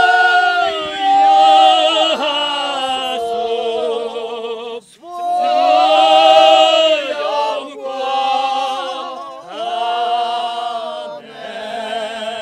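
A group of Górale highlander men singing a folk song unaccompanied, in several voices. They hold long notes with vibrato, in phrases of a few seconds with brief breaks between them.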